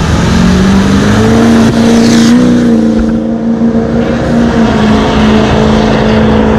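Diesel pickup truck accelerating hard down a drag strip. Its loud engine note rises for the first couple of seconds and then holds steady as the truck pulls away.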